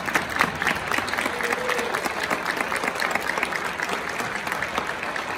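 Audience applauding: a dense patter of many hands clapping, easing off slightly near the end.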